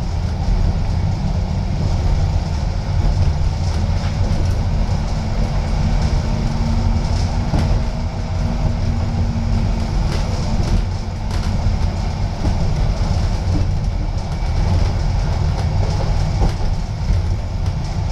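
Metre-gauge tram running along the track, heard from inside its passenger cabin: a steady low rumble from the wheels and running gear, with a few sharp clicks and knocks scattered through it.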